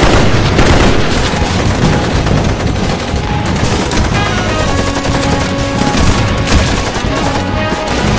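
Loud, dense crackle of rapid sharp bangs with music underneath; a few held tones join in about halfway through.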